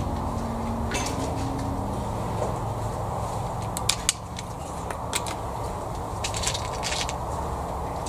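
Light clicks and rustles of a Weihrauch HW77 spring-piston air rifle being handled over a steady low background rumble. The sharpest two come about four seconds in, and a few more follow as the underlever is unlatched and swung down to cock the rifle.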